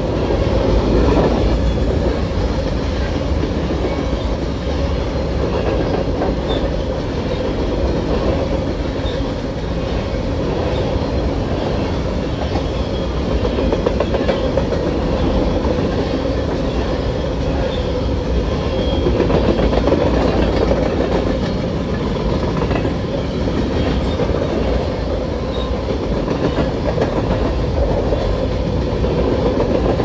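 Empty covered hopper cars of a freight train rolling past at close range: steel wheels running on the rails with a steady, loud rolling noise.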